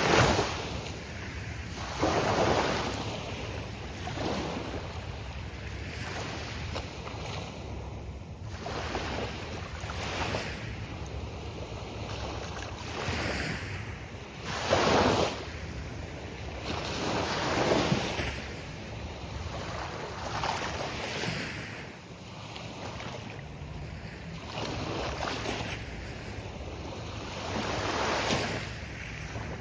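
Gulf of Mexico surf: waves breaking and washing up the beach one after another, a rushing hiss that swells and fades every few seconds over a steady low rumble, with the loudest breaks at the start and about halfway through.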